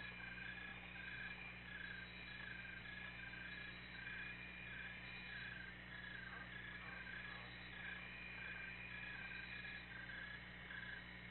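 Faint night chorus of calling animals: a pulsing high call repeating two or three times a second over a steady higher trill, with a low steady hum beneath.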